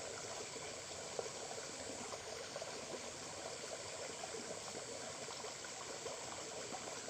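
Small stream running steadily, an even rush of flowing water, with one brief faint tap about a second in.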